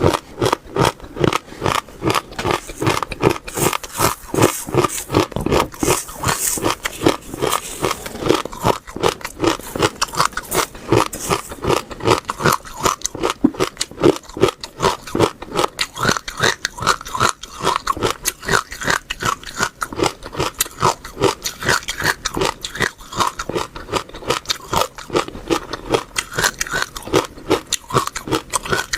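Close-miked chewing of crisp food, a fast, steady run of crunches several times a second.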